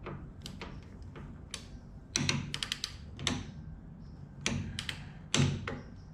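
Irregular metallic clicks and knocks of a hand tool tightening a jam nut onto a grub screw on a Beetle torsion arm. The louder ones come in a quick cluster around the middle and a few more near the end.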